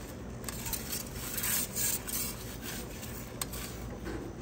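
Metal turning peel scraping and rubbing against the baking stone of a wood-pellet pizza oven as the pizza is shifted and turned, in a few short scrapes with a sharp click about three and a half seconds in.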